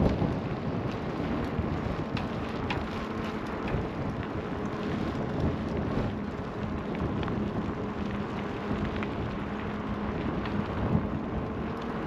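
Wind buffeting the microphone: a steady low rumble with scattered light ticks and crackles.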